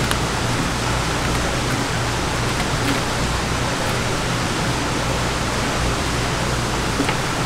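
Steady rushing background noise with a low hum beneath it, and a few faint ticks.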